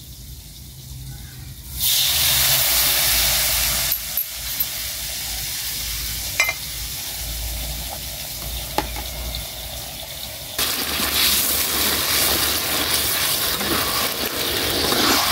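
Water poured into a hot aluminium wok of fried spice paste and chicken pieces over a wood fire, setting off a sudden sizzling hiss about two seconds in. The sizzling carries on with a few sharp clicks and grows louder again for the last few seconds while the chicken is stirred, the start of braising the chicken in its spices.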